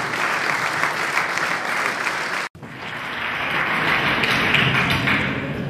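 Audience applauding: a dense, steady patter of many hands clapping, which cuts out for an instant about two and a half seconds in and then carries on.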